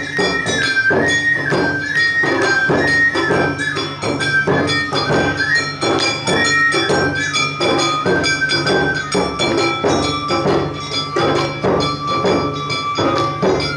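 Awa Odori narimono ensemble playing: a shinobue bamboo flute carries a melody that steps between held notes, over a steady beat of drums and percussion at about two to three strikes a second.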